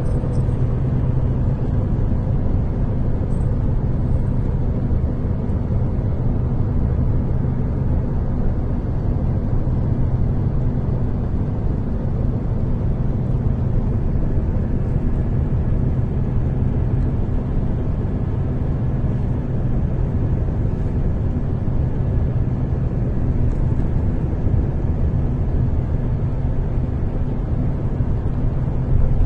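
Car engine and tyre noise droning steadily, heard from inside a moving car.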